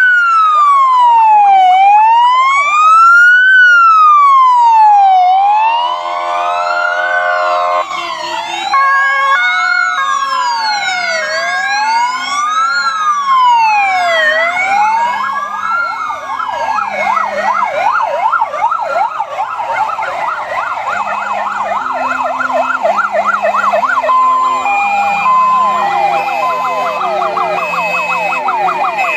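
Several fire engine sirens sounding as a convoy passes. A loud wail slowly rises and falls about every three and a half seconds. From about halfway it is joined by faster sweeping sirens, and later by a two-tone horn alternating between two notes.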